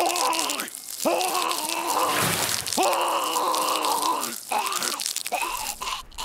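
A wounded cartoon yeti's drawn-out choking groans, several in a row, with wet dripping and spurting blood sound effects from an axe wound in his throat.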